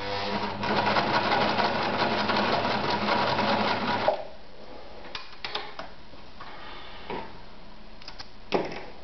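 Victoria 118F electric sewing machine stitching through leather at speed for about four seconds, its motor humming under the rapid needle strokes, then stopping suddenly. A few light clicks follow, and near the end there is a single short snip of thread snips.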